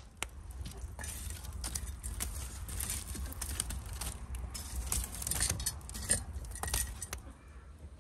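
Metal poker stirring and shoving burning logs in a brick wood-fired oven: a busy run of sharp clinks, knocks and scrapes of metal on wood and brick over the crackle of the fire, from about one second in until near the end.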